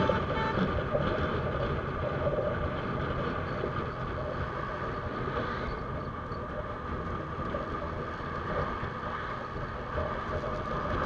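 TVS Apache RTR 160 single-cylinder motorcycle cruising at a steady speed: engine running under wind noise on the camera microphone.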